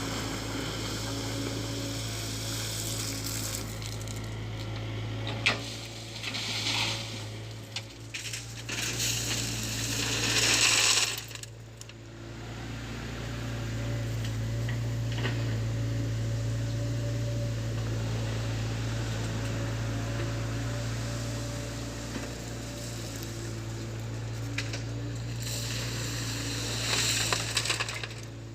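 Excavator's diesel engine running steadily, with bursts of gravel and stones clattering and scraping in the bucket, loudest about ten seconds in and again near the end.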